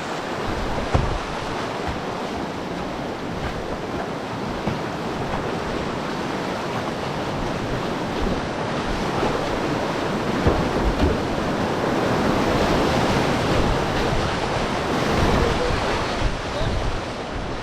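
Steady rushing of a flooded river's whitewater rapids.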